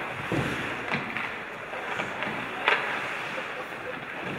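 Ice hockey play in a rink: a steady hiss of skates and arena noise, with a few sharp clacks of stick and puck, the loudest about two and a half seconds in.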